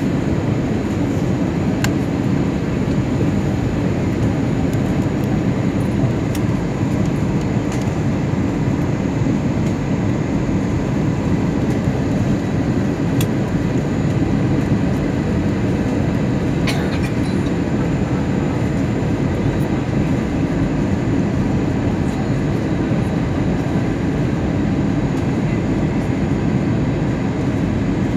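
Airliner cabin noise during the approach for landing: the steady, low rush of engines and airflow heard inside the cabin, with a few faint ticks here and there.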